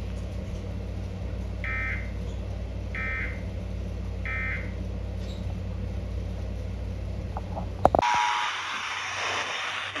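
Three short warbling data bursts about a second apart, heard through a TV speaker over a steady low hum: the Emergency Alert System end-of-message code that closes an alert. Near the end a sharp click cuts to a brief tone and a radio hiss.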